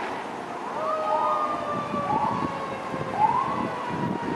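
Emergency vehicle siren: short rising whoops repeating about once a second over a long steady tone that slowly falls in pitch.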